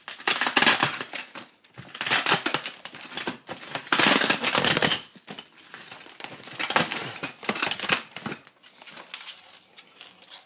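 Plastic packaging wrap being handled and crumpled, a loud crinkling in several bouts of about a second each, quieter near the end.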